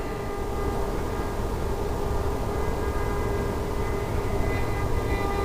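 Electric motor and propeller of a radio-controlled flying wing, an NTM 35-42A 1250Kv brushless outrunner, whining steadily in flight as several level tones over a low rushing noise, a little louder near the end.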